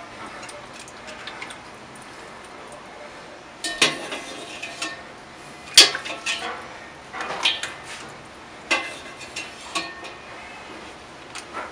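Kitchenware knocking and clinking as cooked spaghetti is lifted from a metal pot into a ceramic bowl with a plastic pasta server. There are several sharp knocks, the loudest about six seconds in, over a low steady hiss.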